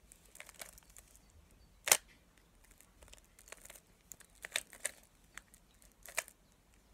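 Plastic 3x3 puzzle cube being turned by hand through an algorithm: irregular clicks and clacks of the layers snapping round, the sharpest about two seconds in and a quick run of smaller clicks in the second half.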